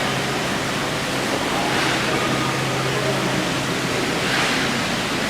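Induction heating furnace running: a steady rushing noise with a low, even hum underneath.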